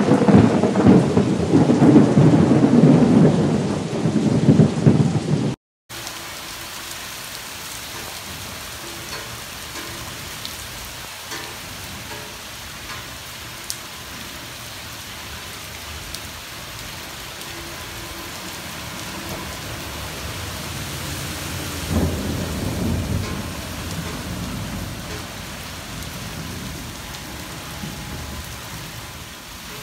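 Thunder rumbling long and loud. Then, after a sudden cut, steady rain falls on wet stone paving, with a softer roll of thunder about three quarters of the way through.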